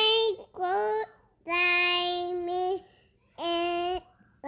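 A young child singing four long held notes, each a step lower than the one before, with short pauses between them.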